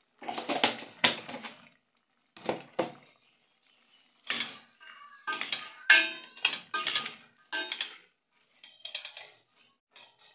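Metal ladle scraping and knocking against a stainless steel pot while stirring a thick curry, in a string of separate strokes, some with a squeaky ringing tone.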